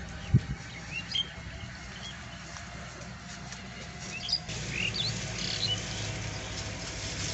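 Small birds chirping in short, scattered calls, several in a cluster around the middle. A single low thump sounds just after the start, over a steady low rumble.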